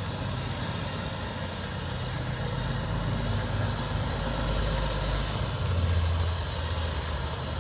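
Semi truck's diesel engine running low and steady as the tractor-trailer pulls slowly with a loaded lowboy trailer. The engine swells a little about six seconds in.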